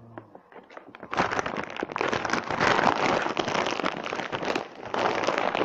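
Brown paper bag being torn open and crinkled by hand. A dense crackling rustle starts about a second in and keeps going.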